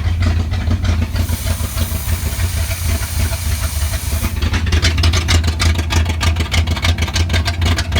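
Chevrolet Camaro engine idling with a bad-sounding motor. A hiss runs over it for a few seconds after about a second in, then a rapid, even ticking starts about four and a half seconds in.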